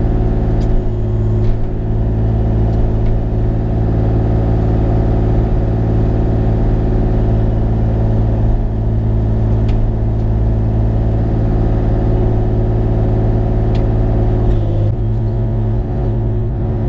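Bobcat E35i mini excavator's diesel engine running steadily at working speed, with a few light knocks; near the end the engine note changes and turns rougher.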